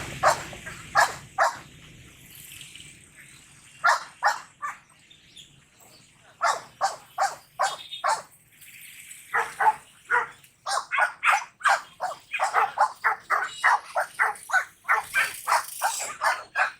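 Dog barking: a few single barks and a short pair at first, then runs of quick repeated barks, about three a second, through the second half.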